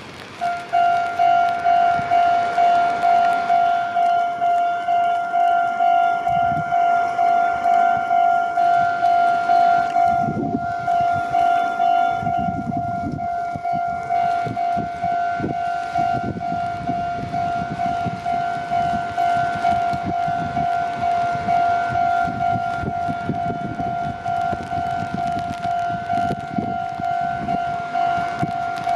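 Japanese level-crossing warning bell ringing in a steady 'kan-kan' rhythm of just under two strikes a second, starting about half a second in. From about ten seconds in, the low rumble of a train passing over the crossing is heard under the bell.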